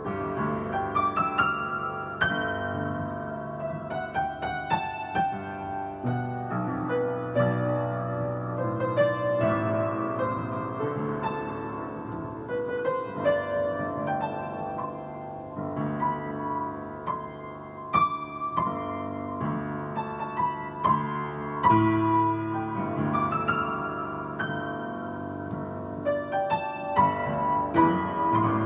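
Piano playing a melody over chords and a bass line, a new note struck every fraction of a second.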